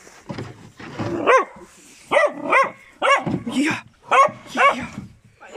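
Puppy barking repeatedly: about seven short, high, arching barks, starting about a second in. They come in a play bow and read as play barks inviting play.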